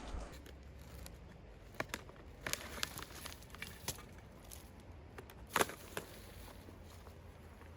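Irregular light clicks, knocks and rustles of objects being handled, the loudest knock about two thirds of the way through, over a faint steady low hum.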